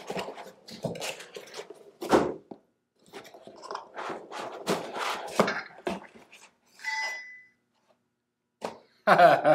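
Cardboard box and foam insert being handled, with rubbing and thunks. About seven seconds in, opening the lid sets off a light-sensor sound module in the box, and its tiny speaker plays a thin gunshot sound followed by the ding of a steel target being hit.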